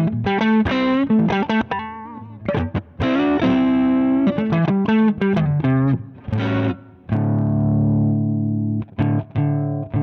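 Overdriven electric guitar played through a Zander Circuitry Surplus overdrive pedal: a riff of quick chords and notes, then a held chord about seven seconds in, followed by a few short chops.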